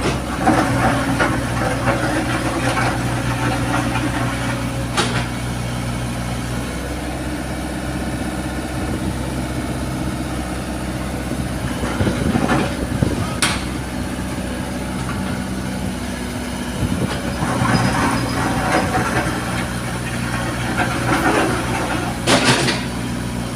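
Heavy machine engine running steadily, its pitch shifting a little a few times, with a few sharp knocks.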